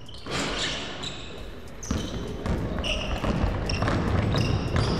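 Basketball game play on an indoor hardwood court: a basketball dribbled against the floor, mixed with short high sneaker squeaks from players cutting.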